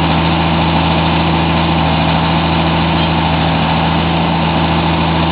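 Diesel engine of a truck-mounted core-drilling rig running steadily at constant speed, with an even hum that does not change.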